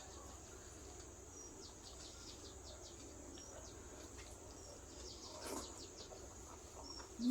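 Faint background of a steady high insect-like drone with many short, high bird chirps. There is a soft click about five and a half seconds in.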